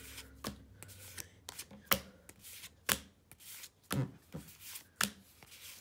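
Pokémon trading cards being flipped through one by one, each card pulled off the stack with a short papery snap, roughly once a second.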